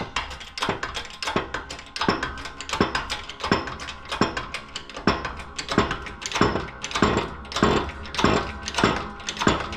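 Hydraulic jack of a shop press being pumped, giving an even metallic clank about every 0.7 s as a part is pressed onto a water pump shaft. A steady low hum runs underneath.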